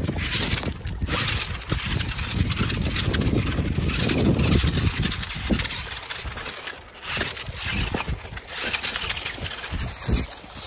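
Wind buffeting the microphone in an uneven rumble, with the clatter of a radio-controlled rock crawler's tyres and chassis over loose stones.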